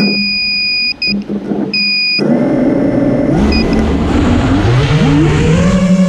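Two long high-pitched beeps from the FPV quadcopter's ESCs, then about two seconds in its brushless motors start spinning at idle with a steady whine that rises in pitch as the throttle is raised for takeoff.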